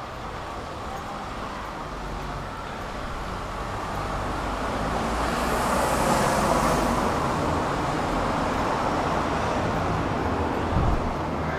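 City street traffic noise: a steady low rumble, with a passing vehicle's tyre and engine noise swelling to its loudest about halfway through and then easing off. A short low thud comes near the end.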